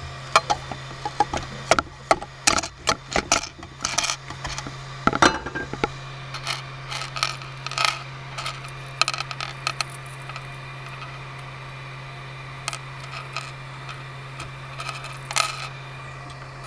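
Sharp clicks and clatter of a metal scraper and printed plastic chain links knocking and scraping on the glass-like build plate of a MakerBot 3D printer, dense for the first six seconds and then sparser as the links are handled. A steady low hum runs underneath.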